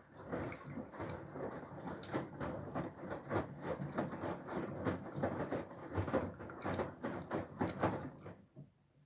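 Whirlpool FSCR90425 front-loading washing machine in its rinse cycle: the drum turning, with water sloshing and wet laundry tumbling in an irregular clatter, until the drum stops near the end.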